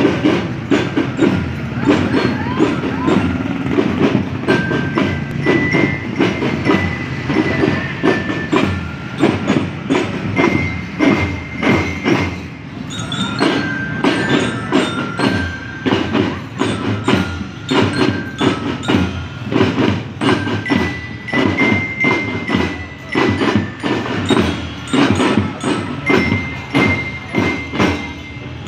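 Marching percussion band playing: a quick, steady rhythm of drum strikes, with high held notes of a melody sounding over it now and then.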